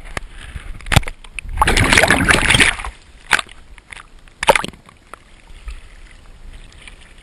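Lake water splashing and slapping against a camera held at the waterline. A loud rush of splashing lasts for about a second, and sharp slaps come about a second in, past three seconds and near four and a half seconds.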